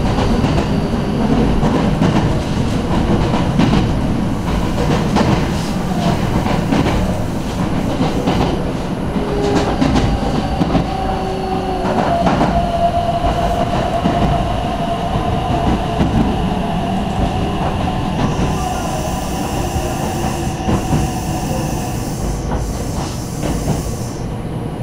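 Commuter electric train running, heard from inside the passenger car: a steady rumble of wheels on rail with repeated clicks over the rail joints. A steady tone rises out of it around the middle, and a high hiss joins in near the end as the train nears the next station.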